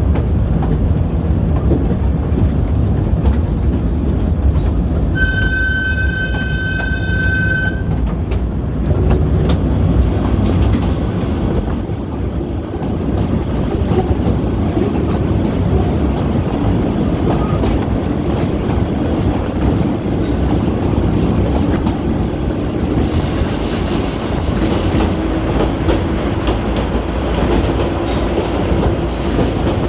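Narrow-gauge Kurobe Gorge Railway train heard from inside an open-sided Ha-type coach: a steady rumble and clatter of wheels on the rails. About five seconds in, a single steady high whistle blast lasts about two and a half seconds. Later there is a brief spell of brighter hiss and a faint hum that slowly rises in pitch.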